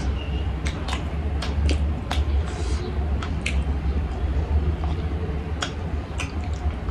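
Eating sounds: chewing and lip smacks on meat on the bone, a scatter of short wet clicks at irregular intervals, over a steady low hum.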